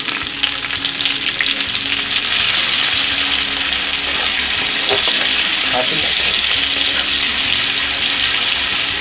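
Sliced onions sizzling loudly and steadily as they fry in hot mustard oil in a wok. A metal spatula stirs them, with the odd light scrape against the pan.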